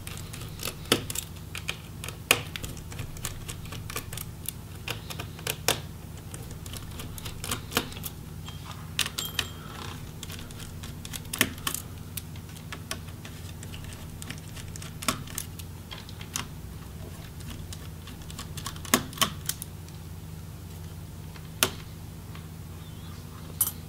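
A small Phillips screwdriver backs out the metal hinge screws of a Samsung Chromebook XE525QBB. It makes irregular sharp clicks and taps as the bit and screws knock against the hinges and case, over a faint steady hum.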